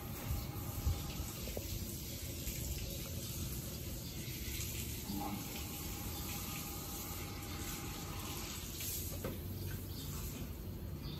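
Water running from a garden hose and splashing onto a dog and a concrete step during a bath: a steady rush of water.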